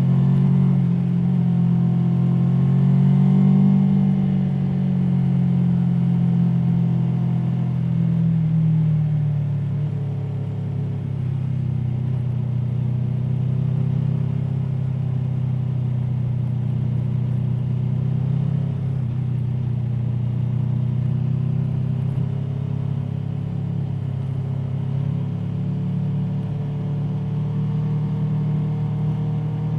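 Aprilia Tuono V4 motorcycle's V4 engine running under way, its pitch slowly rising and falling with the throttle. It is loudest in the first few seconds, eases off around ten seconds in, then holds steady with a slight rise near the end.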